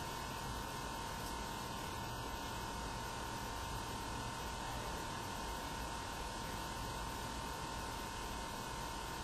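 Steady hiss with a thin, steady high whine through it: room tone and self-noise of a camcorder's microphone in a quiet room, with no distinct event.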